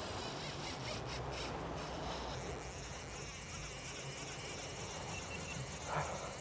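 Boat engine running slowly, with the wash of wind and water over it and a brief louder sound near the end.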